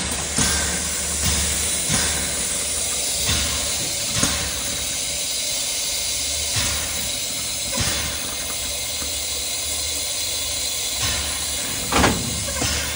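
Steam locomotive hissing steam steadily, with a few louder puffs in the first four seconds and another near the end.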